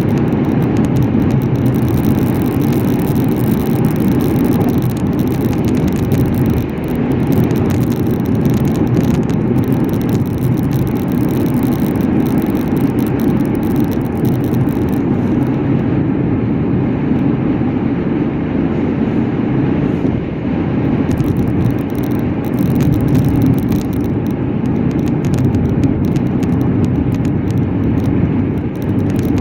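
Steady road and engine noise of a car driving, an even low rumble with no breaks.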